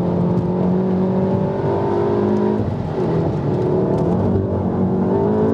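Volkswagen MK7 Golf R's turbocharged 2.0-litre four-cylinder engine under load on track, heard from inside the cabin. The engine note holds steady, breaks briefly about halfway through, then climbs as the car accelerates again.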